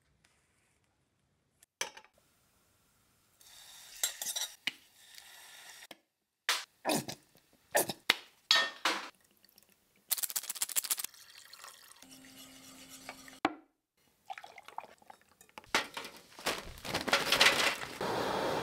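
A run of kitchen sounds in short separate cuts: knife strokes on a wooden cutting board, sauce poured into a metal saucepan and a wire whisk clinking against it, then a gas burner's flame burning with a low rush that is loudest near the end.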